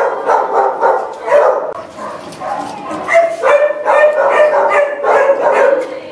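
Shelter dogs barking in their kennels, the barks coming fast and overlapping, with one longer held note about halfway through.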